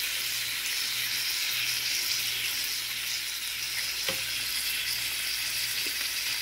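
New York strip steak sizzling steadily in butter in a nonstick frying pan, an even hiss with a faint tick about four seconds in.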